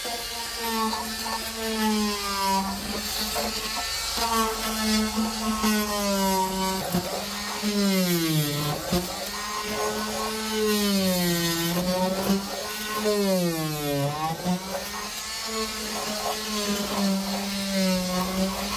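Oscillating multi-tool with a flexible scraper blade running steadily while stripping rubber sound-deadening coating from a car floor. Its pitch sags and recovers several times as the blade loads up, deepest about halfway through and again about three-quarters through.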